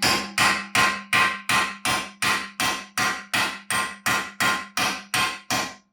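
A hammer pounding on metal in a steady run of about sixteen blows, a little under three a second, each blow ringing with a metallic tone.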